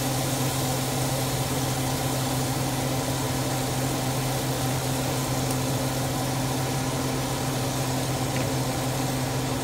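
Steady hum of a stove's exhaust fan, with the faint sizzle of fish fillets frying in butter in a pan.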